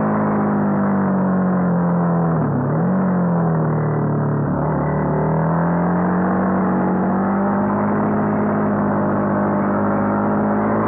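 Honda CBR250R's single-cylinder engine running hard on a track lap, heard from on board. Its note drops sharply twice in the first five seconds, then climbs steadily as the bike leans through a bend and accelerates out.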